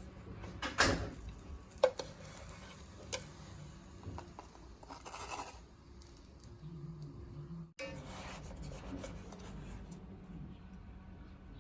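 Light kitchen handling sounds while preparing naan dough: a few sharp taps and clicks and some soft scraping and rustling.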